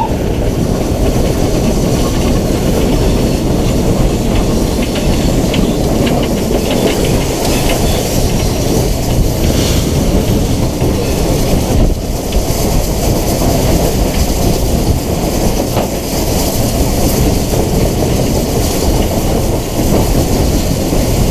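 BR Standard Class 9F 2-10-0 steam locomotive running under way: a steady, loud, noisy rumble with faint clicks of the wheels over the rail joints.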